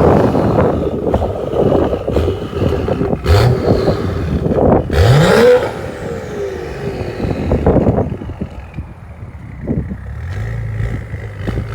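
A BMW 535i's turbocharged inline-six, fitted with downpipes, aftermarket mufflers and a stage 2 tune, is revved in short blips. The exhaust pops and crackles sharply between revs. About halfway through, a falling whistle sounds as the revs drop, then the engine settles to a lower, steadier note before picking up again near the end.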